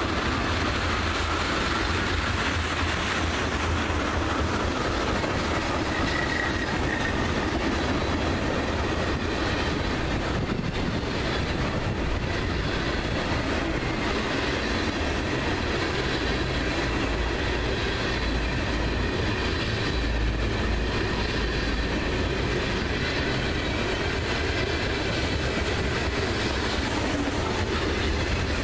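Freight train cars, loaded tank cars and covered hoppers, rolling past close by with a steady rumble and clatter of steel wheels on the rails. A faint high wheel squeal comes and goes.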